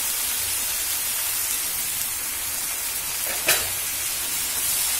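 Onion-and-spice masala sizzling steadily in hot oil in a frying pan, a little water just added to it. A single sharp knock about three and a half seconds in.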